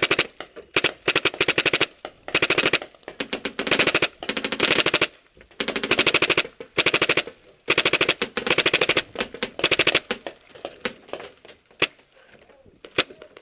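RAP4 M60 paintball machine gun firing in rapid bursts, a dozen or so short volleys one after another, thinning to scattered single shots near the end.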